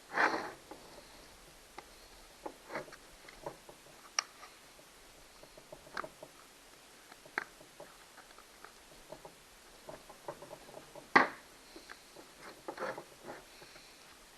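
Scattered clicks, taps and scrapes of hand tools and small parts being handled during a chainsaw teardown, with a short scraping rattle at the start and one sharp knock near the end.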